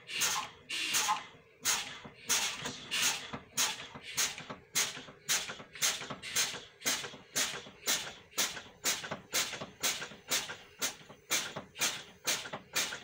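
School bus air brake system hissing in short bursts, about two a second, as the service brake pedal is fanned and each release vents air. The tanks are being bled down toward 20–30 PSI to test that the parking brake sets.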